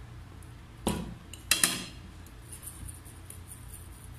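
A knock about a second in, then two sharp clinks of a metal fork against crockery, followed by faint scraping as the fork starts stirring pancake mix and evaporated milk in a ceramic bowl.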